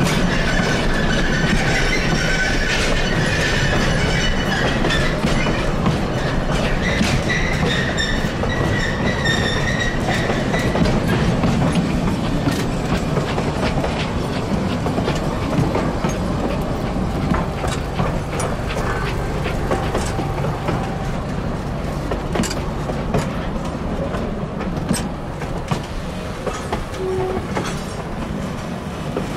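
Narrow-gauge railcars rolling past close by, the flatcars and then the passenger coaches, their wheels clicking over the rail joints. A high wheel squeal sounds through the first ten seconds or so, and the rolling fades slightly near the end.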